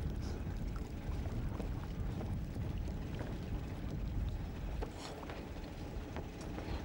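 Wind rumbling steadily on the microphone beside moored felucca sailboats, with a few faint scattered clicks and knocks, the clearest about five seconds in.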